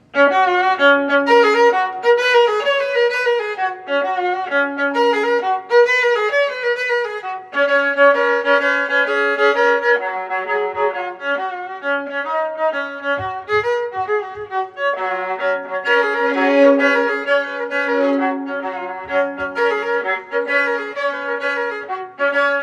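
Violin music: a melody of quick, changing notes with vibrato over a held lower note.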